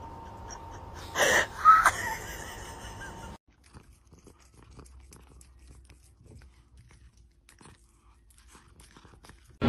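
A short, loud, noisy burst about a second in, with a sharp click just after. Then, after a cut, a cat chewing a strawberry: faint, scattered, wet clicks.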